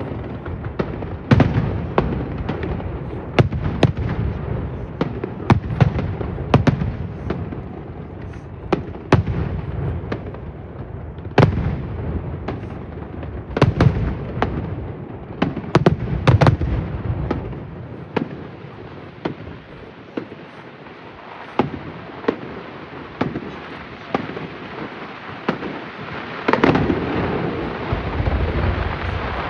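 Fireworks display: a rapid succession of shells bursting with sharp cracks and booming thuds. The bangs thin out to a quieter crackling lull past the middle, then a loud cluster of bursts comes near the end.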